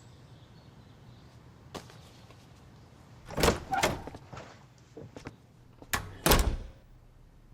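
A door being opened and shut: a light click, then a few knocks and thuds, the loudest about six seconds in.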